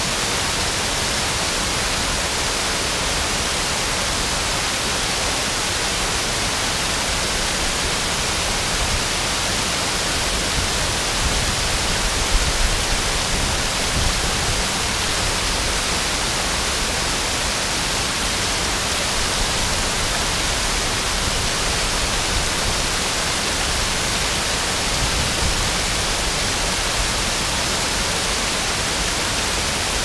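Waterfall: water pouring over a stone ledge and splashing onto the rocks below, a steady even rush with a lot of hiss in it.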